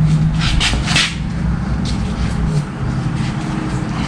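A steady low engine hum that fades out about two and a half seconds in, with a few short sharp knocks and clatters in the first two seconds.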